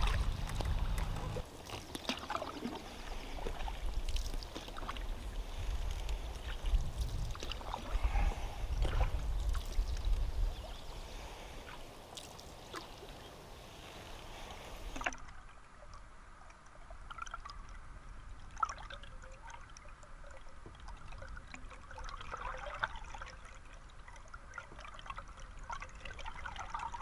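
Canoe being paddled on a river: water swishing and dripping with the paddle strokes over a low rumble. About halfway through it drops to quieter water trickling and lapping with small clicks.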